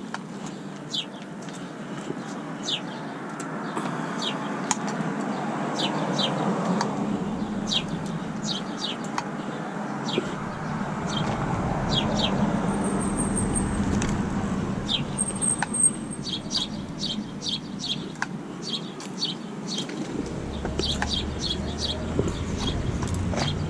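Small birds chirping over and over in short, quick notes, above the noise of road traffic as cars pass by and fade.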